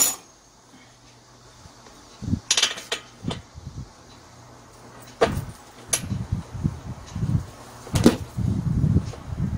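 Hand work on an engine blower's plastic engine housing, with the engine not running: scattered sharp clicks and knocks of tools and plastic parts, the loudest about five and eight seconds in, with muffled bumping and handling noise toward the end.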